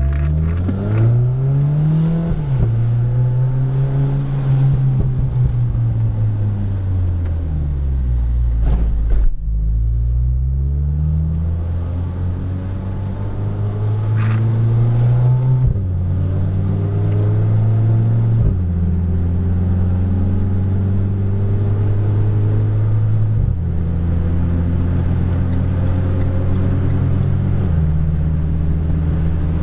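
Renault Clio RS IV's 1.6-litre turbocharged four-cylinder engine running hard on track. The revs climb and fall over the first ten seconds, then hold steadier with several sudden steps in pitch as gears change.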